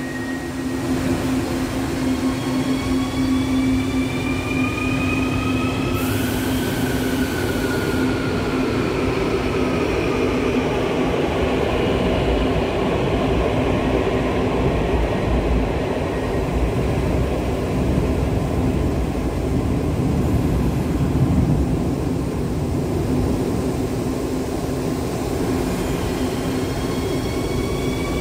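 Metro de Quito CAF-built metro train running through an underground station: the electric traction motors whine, rising in pitch as the train gathers speed, over a steady rumble of wheels on rails. About six seconds in there is a brief hiss and the whine then falls slowly; near the end it rises again as a train pulls away.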